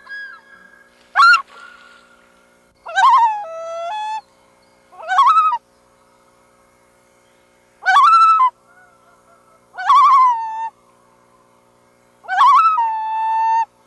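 Loons calling: six separate wavering calls about every two seconds, each rising and then falling or stepping down in pitch, the longest held for over a second. A faint steady tone runs underneath.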